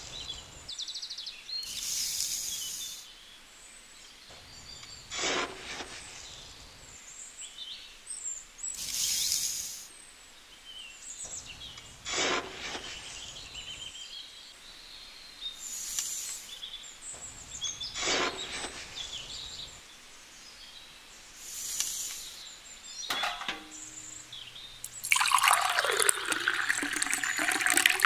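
Spoonfuls of sand and cement scooped with a small metal spoon from little tin buckets and tipped out, a short scrape about every three to four seconds, with birds chirping faintly in the background. About three seconds from the end, water is poured from a small bucket into a miniature mixer drum, the loudest sound.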